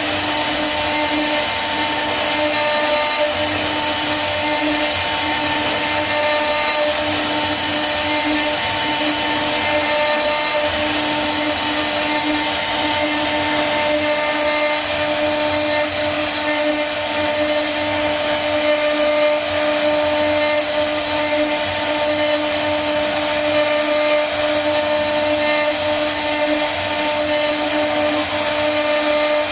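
CNC router's high-speed spindle motor running with a steady whine while its bit carves a relief into a wooden panel, the hiss of the cutter in the wood mixed in.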